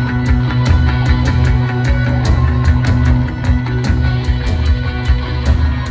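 Loud live rock band: a drum kit keeps a fast, steady beat of about four hits a second under distorted electric guitar and a heavy low end.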